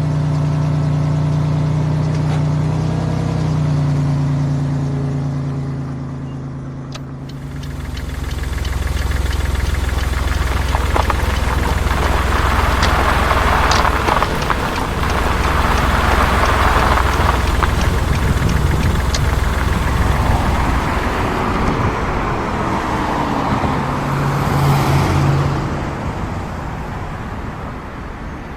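Truck engine sound: a steady, even idle for the first several seconds, then about seven seconds in it runs hard and loud with a heavy, rough rumble, settling back to a steady tone near the end.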